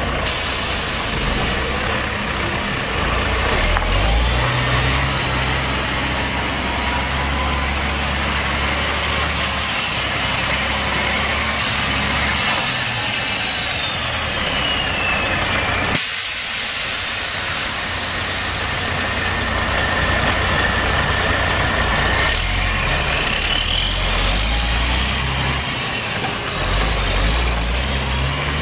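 2003 Kenworth T800 hooklift truck's diesel engine running as the truck drives, its pitch stepping up and down. The sound breaks off briefly about halfway through.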